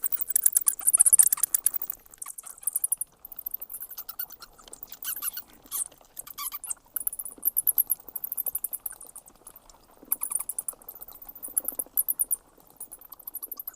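Bats squeaking and chittering: rapid trains of very high-pitched clicks and chirps, coming in bursts with short gaps.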